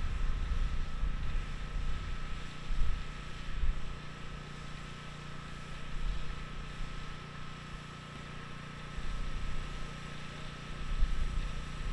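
Wind buffeting the microphone in uneven gusts, over a steady low hum and a faint, steady high-pitched tone.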